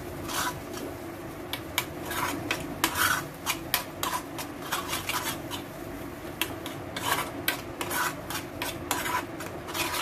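A metal spoon stirring and scraping thick grated raw mango around a metal pan, with repeated irregular scrapes and clinks against the pan's surface. A steady low hum runs underneath.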